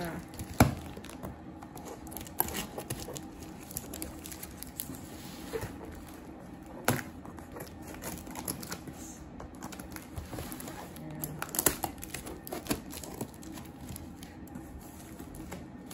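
A damp cardboard box being opened by hand: packing tape tearing and cardboard flaps rustling and crinkling, with scattered sharp clicks and taps. The loudest clicks come about half a second in and about seven seconds in.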